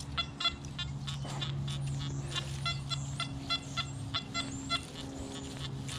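Nokta Anfibio metal detector's audio as the coil is swept: a steady low tone, broken off briefly near the end, with rapid short higher-pitched beeps over it.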